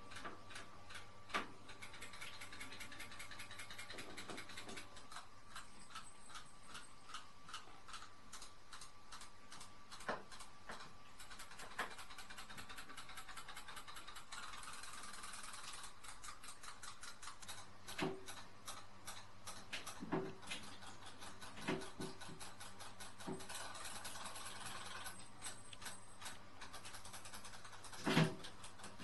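Fast, even mechanical ticking runs steadily throughout, with a few sharp knocks and taps scattered through, the loudest near the end.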